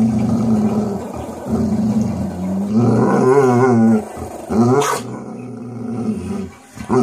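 Shar Pei mix dog growling and grumbling in long, deep drawn-out sounds that waver up and down in pitch about three seconds in. A single short sharp click near the five-second mark.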